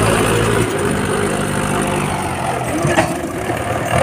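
Mahindra 475 DI tractor's diesel engine running under load as it pulls a trolley heaped with sand through soft sand. There is a sharp click about three seconds in.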